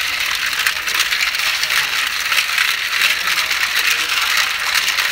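Hands scrubbing live snails in a basin of water: a steady clatter of shells knocking against each other, with water splashing.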